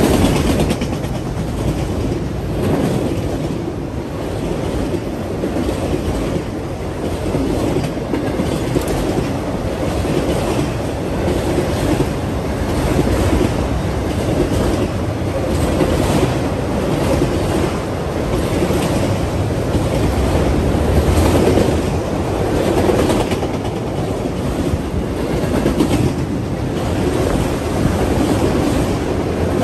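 A freight train of autorack cars rolling past close by: a loud, steady rumble and clatter of steel wheels on the rails.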